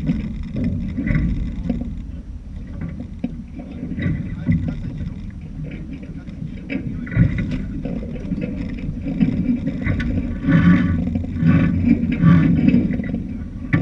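Steady rumbling noise of a small sailing boat under way, with wind and water on the hull, and a few brief louder sounds near the end.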